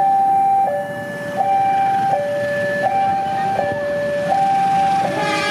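Railway level-crossing warning alarm sounding: two electronic tones, one high and one low, alternating about every 0.7 seconds as a train approaches.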